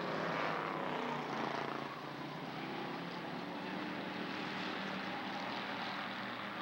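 Several hobby stock race cars running at speed on the track. The engines are loudest and fall in pitch as the pack passes close in the first couple of seconds, then settle to a steadier, more distant sound as the cars run down the far straight.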